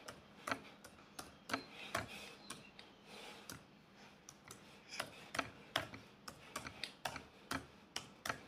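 Typing on a computer keyboard: a string of uneven key clicks, with a short lull about three and a half seconds in before the typing picks up again.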